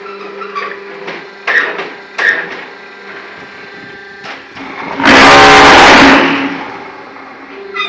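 ZCJK4-15 concrete block-making machine running with a steady mechanical hum. Two metal clanks come in the first few seconds, and a loud burst of noise lasting about a second comes just after five seconds in.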